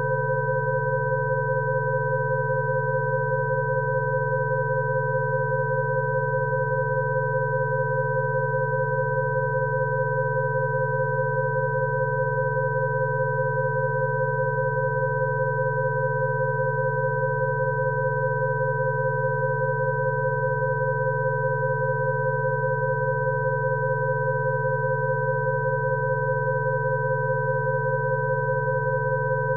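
Electronic sine tones from a Rife frequency track: several pitches held together at once, steady and unchanging, over a low hum.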